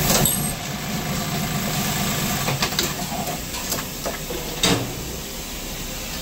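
Automatic waistband-elastic joining machine running a test cycle after repair. A steady mechanical hum lasts about the first three and a half seconds, then come a few sharp clicks and a louder knock about four and a half seconds in.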